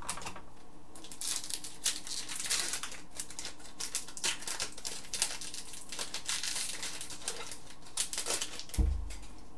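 Trading cards being handled: a quick, irregular run of rustles and flicks as cards are thumbed through and set down on a desk. A single dull thump comes near the end.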